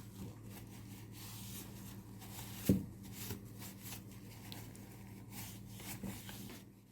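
Hands handling objects: rubbing, scraping and light clicks, with one sharp knock nearly three seconds in, over a steady low electrical hum.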